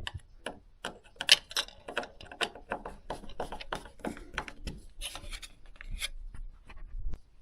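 Irregular small clicks, scrapes and rubbing as a video doorbell's mounting bracket is handled and fitted in place by hand.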